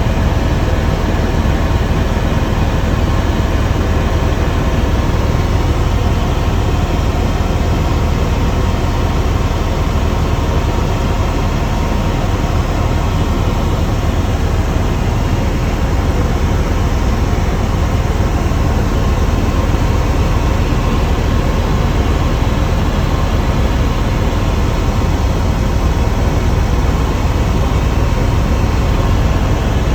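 Helicopter engine and rotor noise heard from inside the cabin: a loud, steady drone with a faint steady whine running through it.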